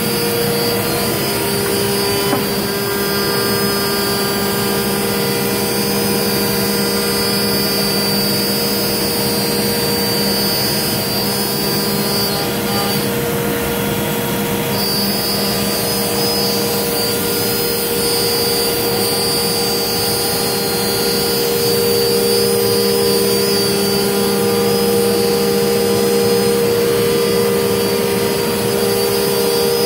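CNC router machining ABS plastic sheet, with its spindle and dust extraction running: a loud, steady whine of several held tones over a hiss.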